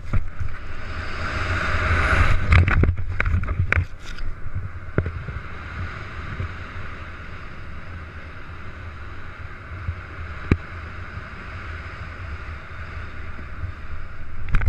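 Wind rushing over the microphone during a parachute canopy descent: a steady low buffeting rumble with hiss, strongest about two to three seconds in, then easing. Several sharp clicks come in the first four seconds, and one more about ten seconds in.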